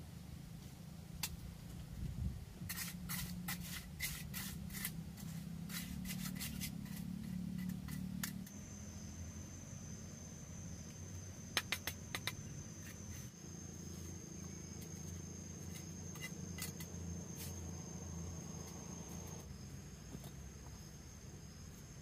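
A mason's trowel tapping and scraping on mortar and concrete blocks while a block is laid: a quick run of light taps a few seconds in and a few sharp knocks around the middle. From about a third of the way in, insects drone steadily at a high pitch behind it.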